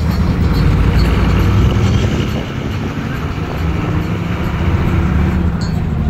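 Steady engine hum and road noise of a moving road vehicle, heard from on board.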